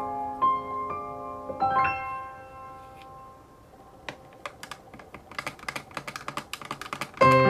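Piano-like background music that stops about two seconds in. From about four seconds, a plastic spoon clicks and taps quickly against a plastic ice-pop mould as it stirs, the clicks coming faster and faster. The music comes back loud near the end.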